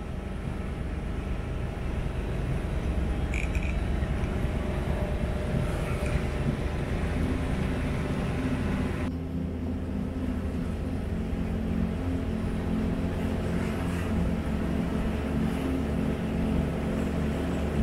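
A sailing yacht's inboard engine running steadily while motoring under way, a constant low hum with a hiss of water and air over it. The higher hiss drops away suddenly about halfway through while the engine hum carries on.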